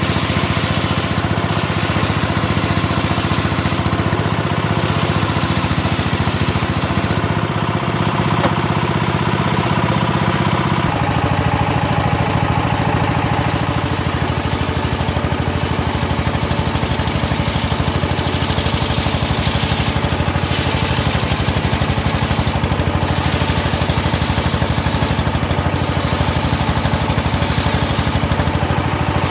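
Engine-driven homemade circular saw rig running steadily while ripping hard teak, with a hiss from the cut that comes and goes in stretches as the wood is fed through. The engine note shifts about 11 seconds in.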